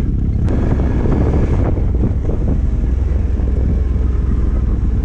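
Stels Guepard 850 quad bike's engine running under throttle in rear-wheel drive, with wind buffeting the microphone.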